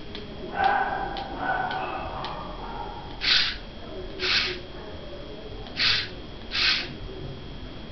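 Small DC gear motors of a home-built RF remote-control car, driven through an L293 chip, whirring in four short spurts as the car is nudged across a tile floor. A few light clicks come in the first couple of seconds.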